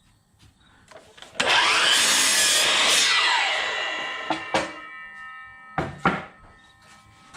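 Power miter saw switched on about a second in, its blade spinning up and cutting through a wooden board to length; the motor's pitch then falls as the blade winds down, ringing as it slows, followed by a few knocks of wood being handled.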